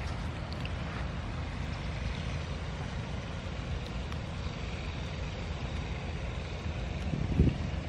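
Wind rumbling on a phone microphone outdoors, steady and low, with a couple of stronger buffets about seven seconds in.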